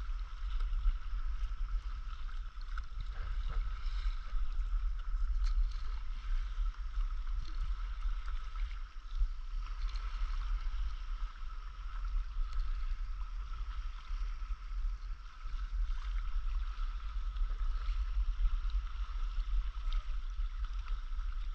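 Water lapping and splashing against a moving stand-up paddleboard, with a heavy low wind rumble on the microphone and a steady high hum.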